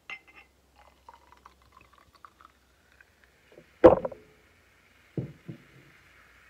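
Naturally carbonated homemade lemonade poured from a bottle into a glass champagne flute, foaming up with a steady fizzing hiss from about three seconds in. A sharp knock of glass, the loudest sound, comes about four seconds in, then two softer knocks.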